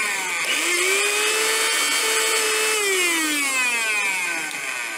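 A mixer grinder's universal motor runs empty with no jar fitted: a loud whine over a brushy hiss. The whine rises in pitch about half a second in as the motor speeds up, holds steady, then sinks from about three seconds in as the motor slows.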